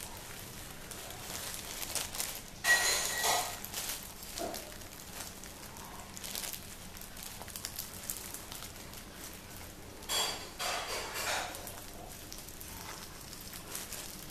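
Thin plastic bag crinkling and rustling as two parakeets pick snack out of it with their beaks, with two louder spells of crackling about three seconds and ten seconds in and light ticks and rustles in between.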